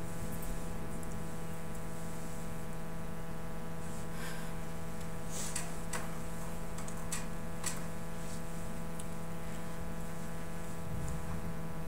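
Steady low electrical hum with hiss, with a few faint short clicks and rustles about halfway through.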